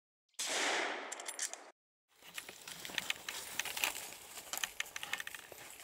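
A sudden loud noise burst from the logo sound effect, fading over about a second and cutting off sharply. After a short silence come dense crackling and rustling of dry fallen leaves as a walker and a small dog move along a leaf-covered track.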